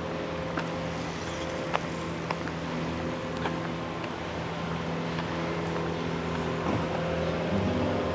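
Bicycle rolling along a paved path: a steady hum and rolling noise, with a few light clicks.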